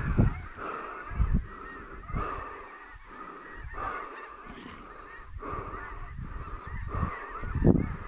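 Snow goose calls: a dense, continuous chorus of many overlapping high honks and yelps, with a few short low rumbles.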